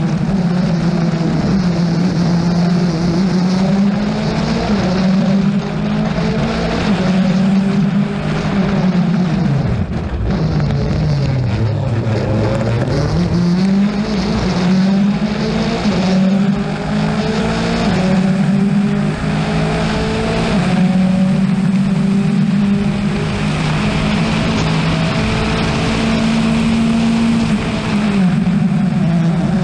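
Rally car engine running hard under load. The revs drop sharply about ten seconds in and climb back up within a few seconds, then dip briefly again near the end.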